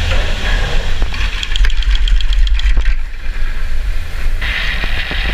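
Chairlift machinery running as the chair carries the rider out of the loading station: a steady low rumble with a run of quick, even clicks in the middle, then a steady hiss from about four seconds in.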